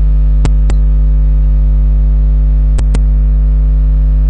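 Loud steady electrical mains hum, with a computer mouse clicking twice, each a quick click-click pair: one about half a second in, the other near three seconds in.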